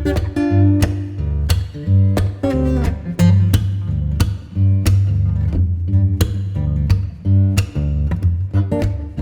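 Background music: plucked guitar notes over a steady bass line with a regular beat.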